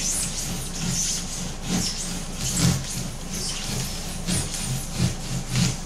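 A handsaw cutting through rigid foam, working back and forth in uneven strokes about one to two a second, trimming overhanging foam side pieces flush with the hull.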